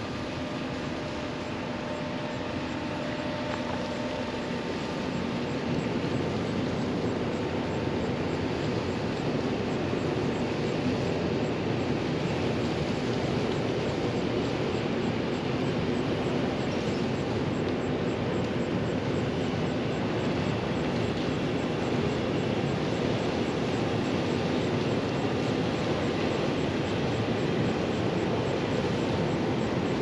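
Low, steady drone of the bulk carrier Federal Kumano's engine as the ship approaches. It grows louder over the first five seconds or so and then holds level.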